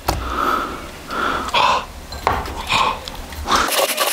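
Kitchen handling sounds: dishes and utensils clinking, with two sharp clicks, one at the start and one a couple of seconds in, and a denser scratchy rustle in the last half second.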